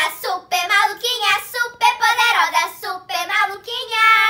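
Girls singing an intro song, with quick changing notes and one long held note near the end.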